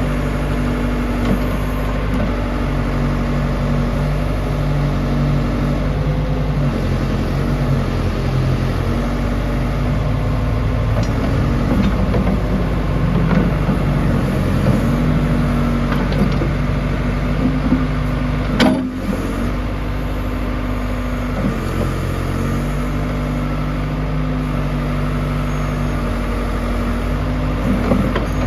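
John Deere 310D turbo backhoe loader's diesel engine running, its pitch shifting up and down as the machine is worked. One sharp clunk sounds a little past halfway.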